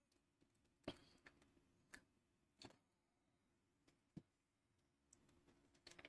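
Faint clicks and taps from a small screwdriver and wire lug at the screw terminal of a red pilot lamp as a wire is fitted, about four separate clicks with the loudest about a second in.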